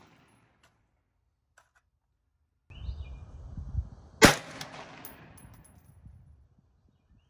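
A single shot from a Centurion Arms Recce rifle, a 5.56 mm AR-15-type rifle, firing Mark 262 ammunition about four seconds in. The sharp report is followed by about two seconds of echo that dies away.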